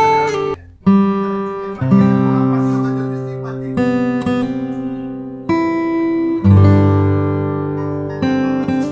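Background music of acoustic guitar chords, each struck and left to ring, changing every second or so, with a brief drop-out about half a second in.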